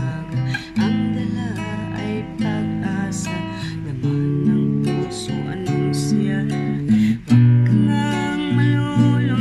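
Background music: a strummed acoustic guitar playing a steady progression of chords.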